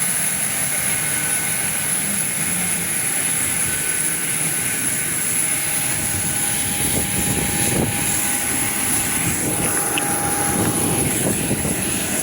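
Airliner engine noise, an even, steady rush with a few faint steady tones, holding a constant level throughout.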